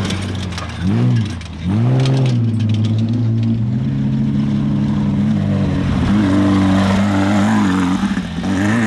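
Off-road race vehicle's engine running hard at steady revs. The revs drop and climb back twice in quick succession about a second in, like brief throttle lifts, then hold fairly steady with small rises and falls.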